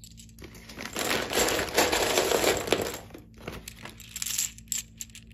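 Loose brass-cased ADI SS109 5.56 mm rifle cartridges clinking and rattling against each other as a hand digs through a plastic bag of them, the bag crinkling. A dense stretch of clinking for the first few seconds, then a few lighter clicks as the handful shifts in the hands.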